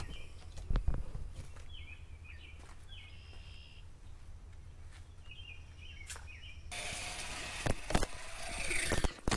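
Outdoor ambience with a low steady hum and a few short bird chirps, with scattered light clicks. About seven seconds in, a louder even rushing hiss sets in and runs on.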